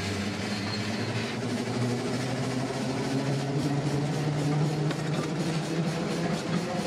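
1929 steam-powered work vehicle under way, heard from its cab: a steady low drone whose pitch rises a little midway, over a constant running noise.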